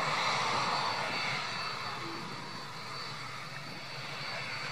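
Cessna 500 Citation I twin-jet taxiing, its two Pratt & Whitney Canada JT15D turbofans running at low power: a steady jet rush with a thin high whine.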